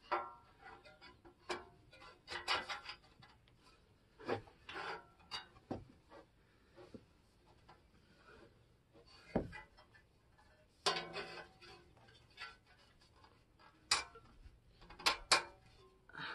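Metal exhaust parts being handled: a slip-on muffler and its clamp worked onto a motorcycle's exhaust pipe, with irregular clinks, knocks and rubbing. The sharpest knocks come in the second half.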